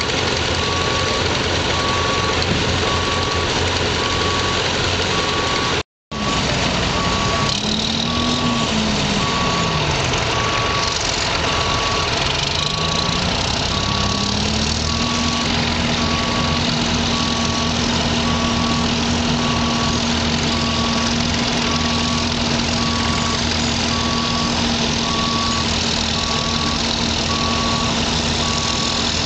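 Vintage crawler tractor engine running under load, pulling a terracer that throws dirt to the side, with a steady machinery hum. A regular beep repeats throughout, and a pitched whine swings down and up before holding steady from about halfway; the sound drops out briefly about six seconds in.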